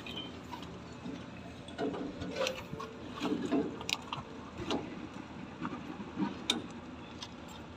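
Scattered sharp clicks and light taps of a small metal-bodied electrical part being handled and taken apart on a plastic lid, over a steady low background noise.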